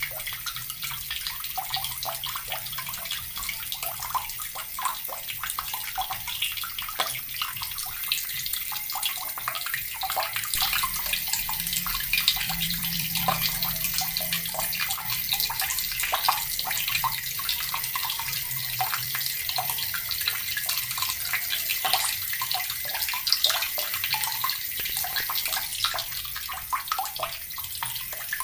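Water from a tap pouring steadily into a bucket, a continuous dense splashing.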